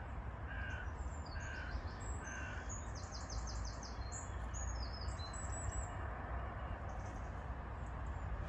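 A crow cawing, short calls about once a second over the first few seconds, while small birds sing high chirping phrases through the middle. A steady low rumble runs underneath.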